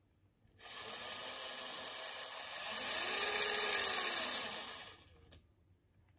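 Micro RC crawler's electric motor and drivetrain spinning with no load, a high whine that comes in, grows louder partway through as the throttle is pushed up with its pitch rising and then falling, and cuts off after about five seconds.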